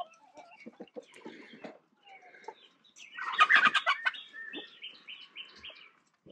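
A flock of all-black chickens clucking, with a loud burst of squawking about three seconds in followed by a quick run of five short high calls.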